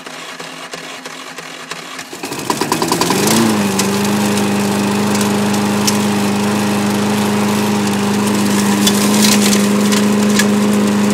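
Lawn-Boy self-propelled mower's electric key starter cranking, then about two seconds in the engine catches, rises in speed and settles into a steady run. A cold start after the mower has sat unstarted for three or four weeks, on a starter battery charged for only a few minutes.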